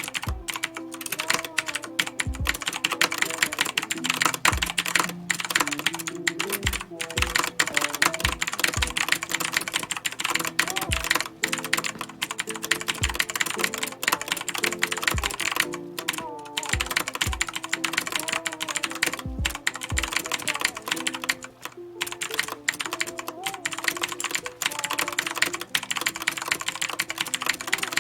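Continuous fast typing on a Redragon Kumara K552 mechanical keyboard with clicky Outemu Blue switches: a dense stream of sharp keystroke clicks, with an occasional deeper thud among them.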